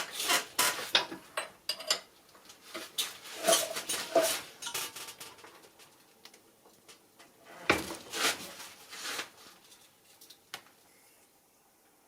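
Metal parts and tools clinking and scraping while a tractor oil pump is handled and taken apart: a run of clatter over the first few seconds, another around eight seconds in, then a few light ticks.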